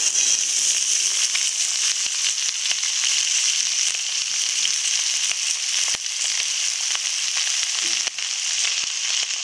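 Washed, chopped onion stalks and diced potato hitting hot oil in a karai with browned onions: a loud frying sizzle that starts suddenly and stays steady, with scattered small crackles.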